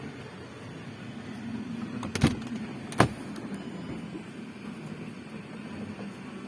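Power-deployable side step on a Range Rover L322 working after reactivation: an electric motor drive running, with two sharp clunks a little under a second apart about two seconds in.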